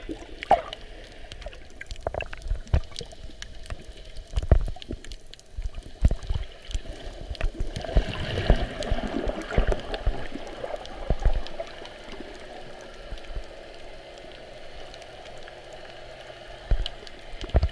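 Underwater sound through a GoPro's waterproof housing: muffled water rush and gurgling with irregular low knocks and thumps, busiest for a few seconds around the middle.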